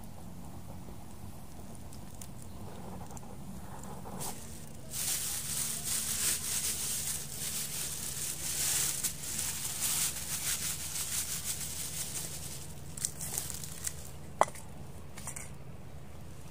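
A thin plastic bag crinkling and rustling for several seconds as hands work fish pieces out of it. Near the end come a few light knocks and one sharp clink as the pieces go into a stainless steel bowl.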